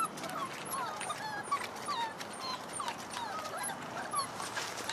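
Vizsla puppies whining and yipping, many short high-pitched cries overlapping one another.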